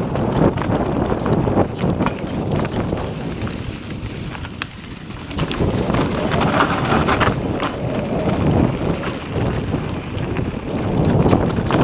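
Mountain bike descending a dirt trail at speed: tyres rumble over the ground and wind buffets the action camera's microphone, with scattered clicks and knocks.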